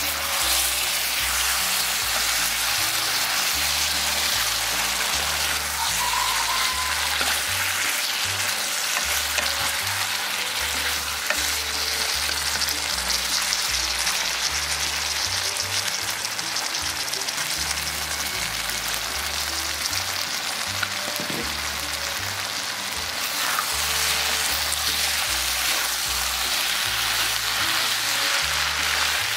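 Catfish and pork belly in a thick chili sauce sizzling in a hot nonstick wok while a wooden spatula stirs it. The sizzle is steady throughout.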